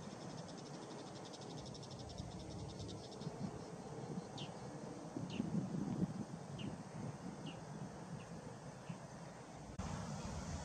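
A fast, evenly pulsing high insect trill that stops about three seconds in, followed by a bird giving short, sharp falling call notes roughly once a second, over a low rumble of wind.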